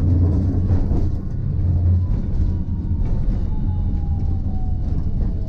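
Hiroshima Electric Railway type 1000 low-floor tram running on street track: a steady low rumble from the running gear, with a thin electric motor whine that falls slowly in pitch as the tram slows.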